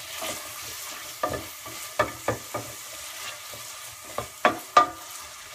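A wooden spoon stirring diced carrots, onions and bacon in butter in a stainless steel pot, over a steady gentle sizzle as the vegetables sweat. About half a dozen sharp knocks of the spoon against the pot come through, the loudest two near the end.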